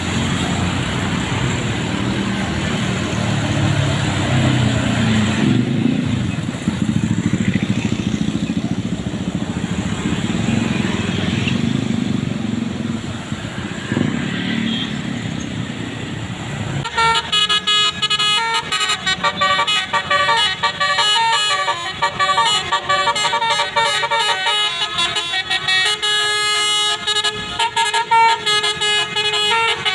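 Passing road traffic rumbling, then a little over halfway a bus's Basuri multi-note musical air horn starts playing a fast 'telolet' tune of rapidly changing notes.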